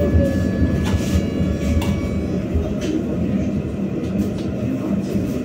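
A BKM-60102 tram running on its rails: a steady low rumble with a few short clicks and faint thin high tones over it.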